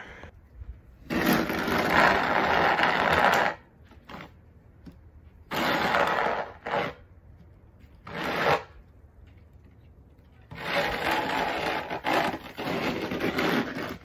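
Snow shovel scraping along a snow-covered walkway: four pushes with pauses between them, two long ones and two short ones.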